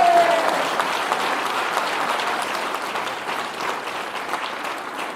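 A crowd of guests applauding, a dense patter of many hands clapping that gradually fades.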